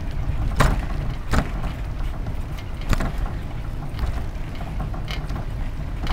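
Steady low rumble of a bicycle rolling along a paved path, picked up by a camera riding on the bike, with three sharp knocks as it jolts over bumps in the first three seconds.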